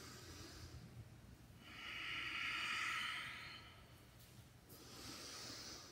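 A woman breathing heavily, out of breath from a high-intensity cardio interval. A long, loud exhale runs from about two to four seconds in, with a shorter, fainter breath about five seconds in.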